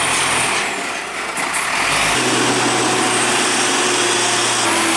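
Hino diesel trucks climbing a steep grade, engines running hard under heavy load. The sound changes abruptly about two seconds in as one truck gives way to the next, with a steadier low engine note after the change.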